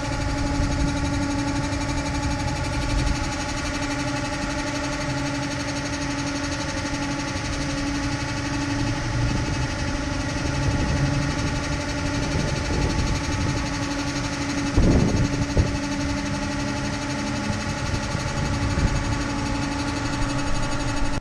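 Steady mechanical whir of a cable-hauled people mover's hauling cable running over its guideway sheave wheels, with several steady tones, over a low rumble of wind on the microphone. A brief louder swish about 15 seconds in.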